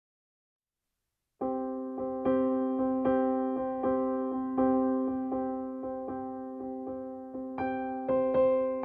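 Gentle piano music: a chord re-struck at an even pace, each strike fading before the next. It begins about a second and a half in.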